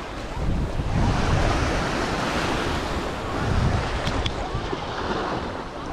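Sea waves washing ashore, with wind gusting on the microphone.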